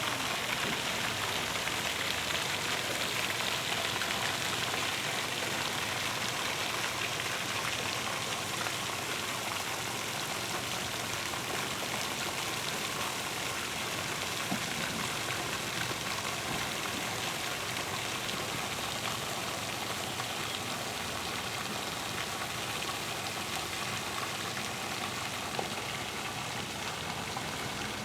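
Steady, even outdoor hiss with no distinct events, slowly easing off a little.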